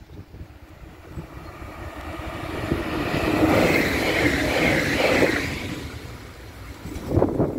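Electric multiple-unit passenger train approaching and running past at speed. The rumble of wheels on rail builds about two seconds in, is loudest between about three and five seconds in, then fades as the train goes away.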